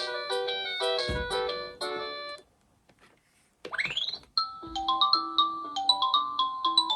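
Electronic melody from a WinFun pull-along elephant toy's sound chip: a bright tune of short beeping notes that stops about two and a half seconds in. After a brief pause comes a quick rising sweep, then another bright tune.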